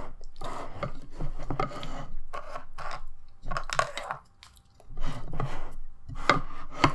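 Utensils scraping and knocking against food dishes in irregular strokes as a meal is dug into, with a brief lull about four and a half seconds in.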